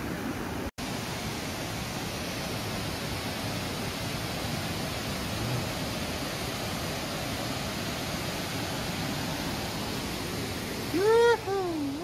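Mountain stream water rushing steadily over rocks and small cascades, with a sudden brief cut to silence under a second in. Near the end a short, loud two-part voice rises and falls in pitch over the water.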